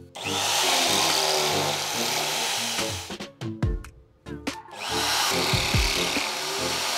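Drill press with a stepped drill bit cutting through a metal angle bracket: two bouts of drilling, about three seconds and two and a half seconds long, with a short break between. Background music plays underneath.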